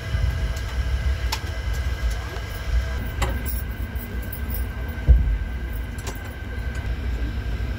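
Express train running, heard inside an air-conditioned coach: a steady low rumble with a faint steady whine, a few sharp clicks, and a louder knock about five seconds in.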